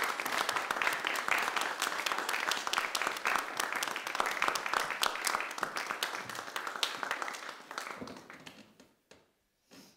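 Audience applauding with a dense patter of hand claps, thinning out and dying away over the last few seconds.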